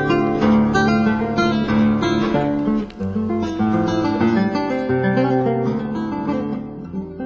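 Background music: acoustic guitar playing a run of plucked notes and strums.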